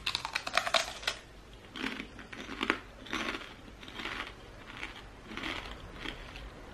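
Crispy fried chicken skin being bitten and chewed. A quick run of crackling crunches comes in the first second, then chewing crunches come about once every three-quarters of a second.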